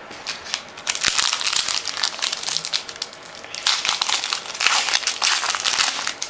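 Crinkling and tearing of a trading-card pack's foil wrapper as it is ripped open by hand, in two stretches with a brief pause just past the middle.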